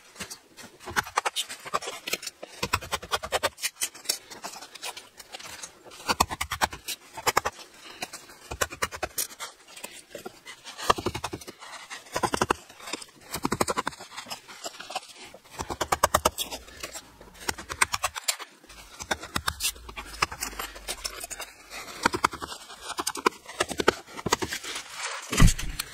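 Chisel chipping and scraping away concrete: runs of quick, sharp taps and scrapes, with short pauses between runs.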